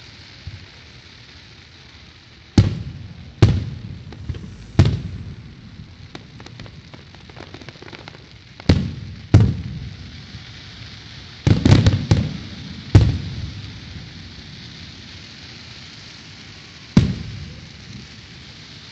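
Aerial fireworks shells bursting overhead: a string of sharp booms, each trailing off in a rumbling echo, with a quick cluster of several bursts about two-thirds of the way through, over a steady hiss.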